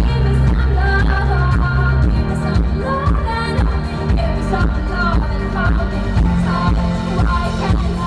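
Live band playing a pop song: a female lead vocal over drums, synthesizer keyboards and a heavy bass line, in a poor-quality audience recording.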